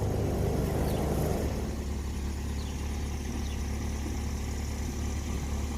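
Car engine running at low speed with a steady low hum as the car is eased up onto drive-on ramps for an oil change.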